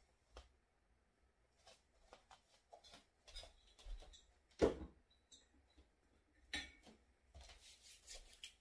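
Light clicks and knocks of bottles and containers being handled, with one sharper knock about halfway through and a quick run of clicks near the end.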